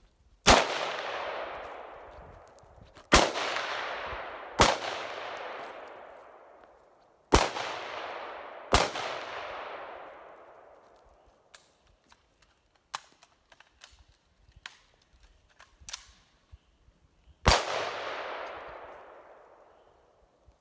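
Six single gunshots at an uneven pace, each followed by a long rolling echo that fades over two to three seconds; four come in the first nine seconds and the last comes after a long gap.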